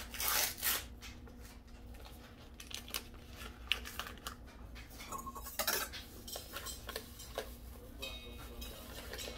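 Paper pouch of instant pudding mix crinkling and rustling as it is opened and shaken out, with light knocks and scrapes against a stainless steel mixing bowl. The loudest rustling comes in the first second, with another burst about five and a half seconds in.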